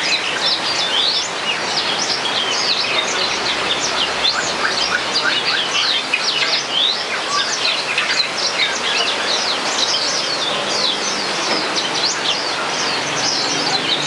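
Yellow-fronted canary (Mozambique canary) singing a fast, unbroken warble of quick chirps and rising and falling whistled sweeps, over a steady background hiss.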